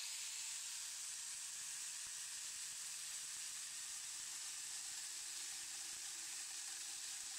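Faint, steady hiss with no changes or impacts; the grinder-driven chainsaw is not running.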